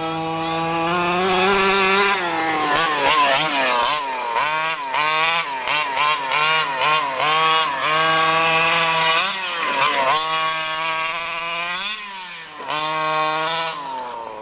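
HPI Baja 5T's small two-stroke petrol engine, on its first tank of fuel. It holds a fairly steady, slowly rising note for about two seconds, then revs up and down in quick repeated bursts as the truck is driven. It eases off briefly about twelve seconds in, then revs again.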